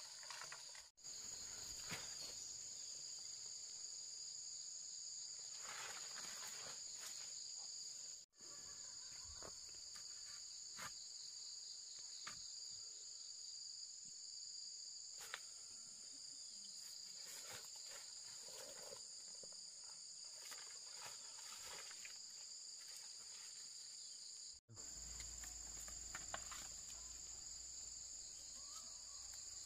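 A chorus of insects chirring in a steady high-pitched drone, with faint scattered knocks and rustles. The sound breaks off for an instant three times.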